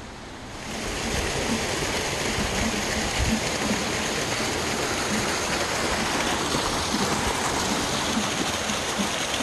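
Steady rush of running water from a garden waterfall splashing over rocks into a pond, fading in just before a second in.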